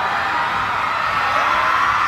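Crowd of fans screaming and cheering, many high voices overlapping.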